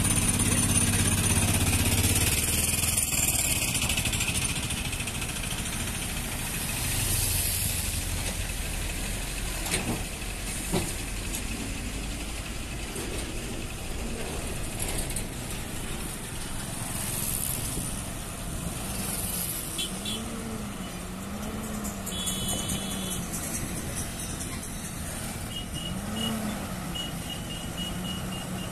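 Diesel engines of loaded lorries running as they crawl past on a rough road, with a motor scooter among them; an engine note rises and falls a few times in the second half. Short rows of quick high beeps sound twice near the end.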